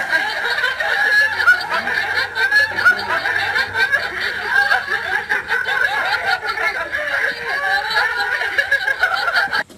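Laughter, going on without a break, until it stops just before the end.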